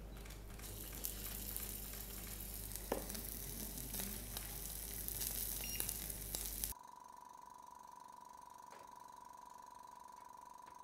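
Thin cultured (lab-grown) beef steak sizzling in a frying pan, with scattered small crackles and pops. About two-thirds of the way through the sizzling cuts off abruptly, and a quieter steady hum with a high whine takes over.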